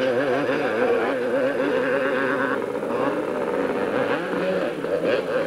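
Two-stroke 250 cc motocross motorcycle engines revving hard, their pitch wavering up and down without a break.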